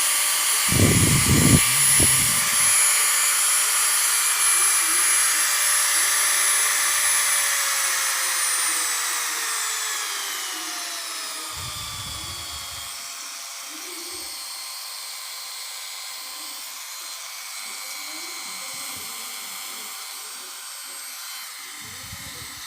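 Small electric mini grinder (rotary tool) running with a steady high-pitched motor whine. About eight seconds in, its pitch slides down over a few seconds as it slows, and it runs on at a lower speed, more quietly. There are two low thumps of handling, near the start and about twelve seconds in.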